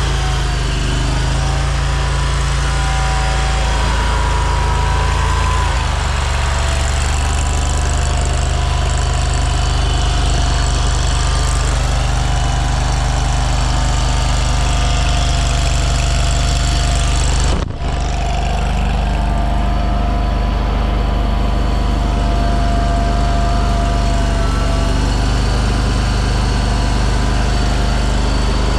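AGT LRT23 mini skid steer's engine running steadily at idle, with a brief dropout a little over halfway through.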